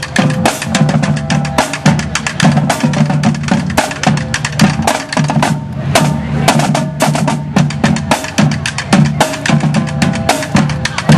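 Marching drum line playing a fast cadence on marching snare drums and tenor drums, a dense run of strikes with a short roll about halfway through.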